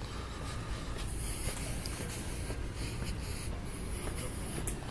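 Scratchy rubbing and rustling over a steady low rumble, with a few faint clicks.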